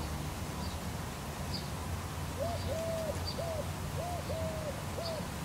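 A dove cooing, a string of soft hooting coos in a halting rhythm starting a couple of seconds in. Beneath it runs the steady hiss of a garden sprinkler spraying.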